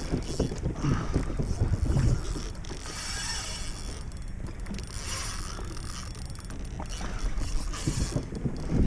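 Wind rumbling on the microphone, with short whirring bursts of a spinning reel being wound against a hooked fish about three seconds in, around five seconds in and near the end.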